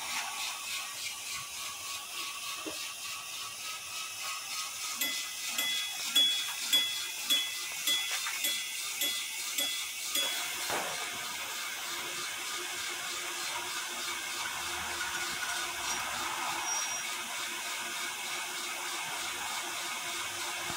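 Small motor-driven bell on a Meccano model funicular, struck about twice a second for some five seconds, starting about five seconds in. Then a steady running sound from the model's electric drive, a small 800 RPM motor moving the cars along the ramp.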